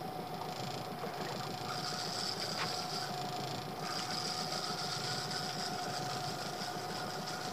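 A spinning reel being cranked in on a hooked pollock, a mechanical whir that stops and starts in spells, over the steady hum of an idling outboard motor.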